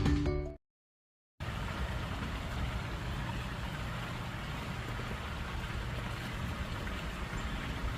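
Music fading out, a second of dead silence, then a steady low rumble and hiss of background noise with no distinct events.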